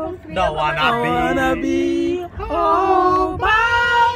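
A group of people singing loudly together, holding long drawn-out notes with brief breaks between lines.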